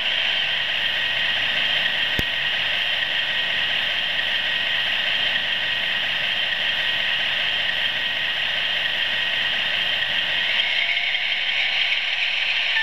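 Steady whirring of OO gauge model trains running on the layout, the motors and wheels turning on the rails, with a single click about two seconds in.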